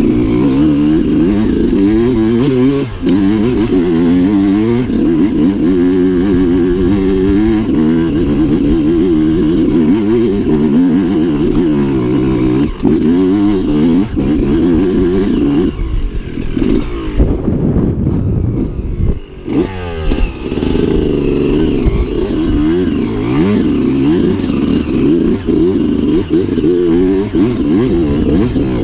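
Enduro dirt bike engine being ridden over rough ground, its pitch rising and falling continuously with the throttle. A few seconds past the middle it eases off and goes quieter briefly before picking back up.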